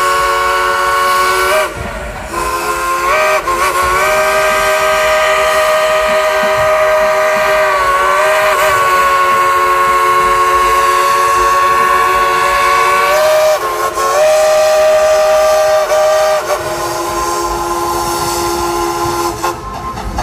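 Steam locomotive's chime whistle blowing long blasts, several notes sounding together, with the longest blast holding for about ten seconds and the pitch dipping briefly now and then. The train's running noise sits low underneath.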